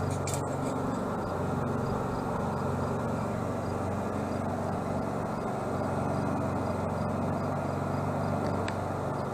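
VEVOR 12-volt 8 kW all-in-one diesel air heater running: the steady hum and rush of its blower fan and burner as it heats up.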